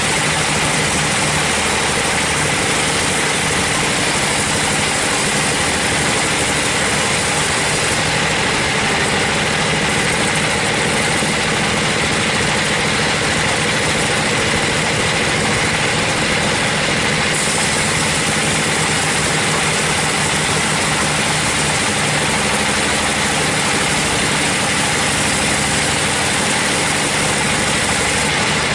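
Band sawmill running steadily, its blade slicing lengthwise through a teak log, with an unbroken engine drone throughout.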